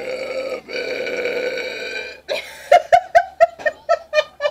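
A woman's long, loud belch after chugging a cold beer, held at a steady pitch with a brief break about two-thirds of a second in, ending about two seconds in. It is followed by a quick run of short staccato sounds, about four a second.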